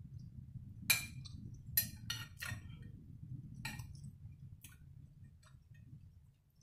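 A metal spoon clinking against a glass dish of lobster bisque: about six sharp clinks, the loudest around the first and second seconds, over a low steady background hum.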